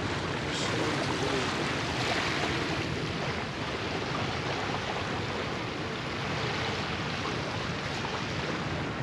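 Steady rushing of water, like surf or waves, with no distinct events.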